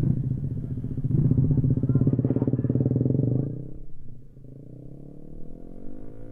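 Motorcycle engine running loud and steady, easing off about four seconds in, then revving up with a steadily rising pitch near the end.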